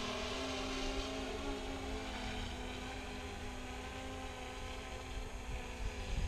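Hubsan X4 quadcopter's motors and propellers whining, fading over the first two or three seconds as the drone flies away. Wind rumbles on the microphone throughout, with a few gusts near the end.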